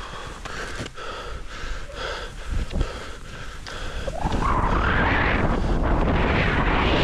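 Skis crunching and edging on crusted snow during slow sidestepping. About four seconds in, the skier drops in and a loud, steady rush of wind on the microphone and skis sliding over the snow takes over as speed builds.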